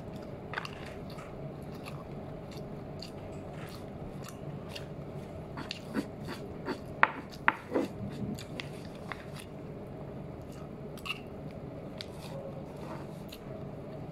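A man chewing rice vermicelli, with small clicks and scrapes of a metal fork picking at the noodles in their paper wrapping, over a steady background hum. A few sharper clicks come about six to seven and a half seconds in.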